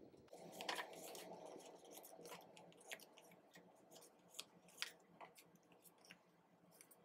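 Faint handling of die-cut paper stickers: a clear plastic bag crinkling in the hands, then the stickers flipped through one by one, with light rustles and many small, sharp flicks and taps of card.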